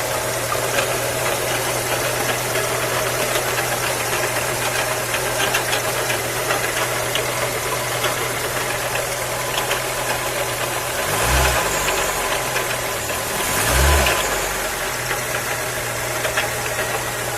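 Volkswagen Golf Mk3 engine idling with a steady hum and light ticking, revved briefly twice a little past the middle. The hum is one whose cause the owner cannot find and thinks may be in the pulleys.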